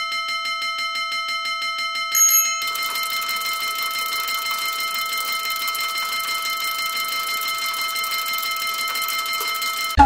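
Railway crossing warning bell of the Dutch kind, ringing rapidly and steadily. A short, louder, higher ding comes about two seconds in, and a steady hiss joins the bell soon after.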